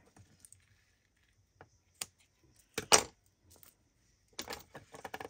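Scissors and a roll of double-sided tape being handled and set down on a tabletop, making separate clicks and knocks. The loudest comes about three seconds in, and a run of lighter clicks follows near the end.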